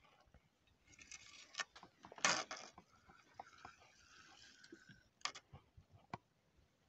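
Light clicking of a spinning reel being wound as a hooked carp is played, with a short burst of rustling noise about two seconds in.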